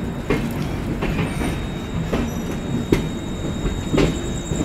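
Passenger train running through a station, heard from one of its coaches: a steady low rumble with sharp, irregularly spaced clacks of the wheels over the rail joints.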